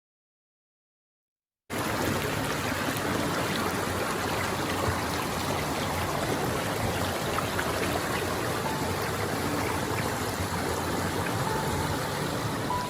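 Steady rushing of a stream, an even wash of water noise that cuts in abruptly after a second or two of silence.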